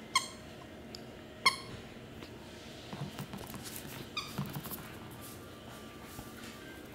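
Rubber squeaky dog toy squeaking three times as a puppy chews it, with a few soft knocks in between.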